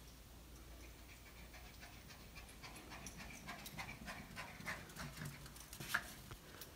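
Small Morkie dog panting rapidly, several breaths a second, getting louder toward the end, with one sharp click shortly before the end.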